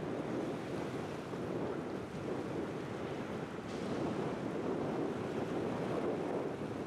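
Boeing 747-400 freighter's four jet engines at takeoff thrust as it lifts off and climbs. The sound is a steady rushing roar with most of its weight low.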